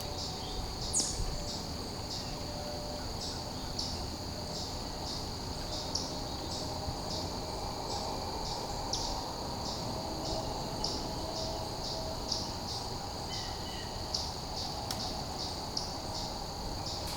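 Insects, likely crickets, chirping in a steady high-pitched chorus that pulses about twice a second.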